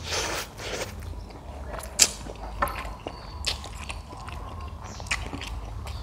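Close-miked eating: a person chewing a mouthful of instant noodles with egg and sardine, with wet mouth noises and a few sharp clicks, the loudest about two seconds in.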